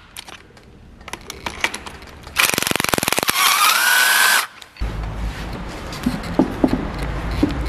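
A power tool runs in one burst of a couple of seconds, rapid clicking at first, then a whine that rises in pitch before it stops. A low rumble and a few light metal clinks follow.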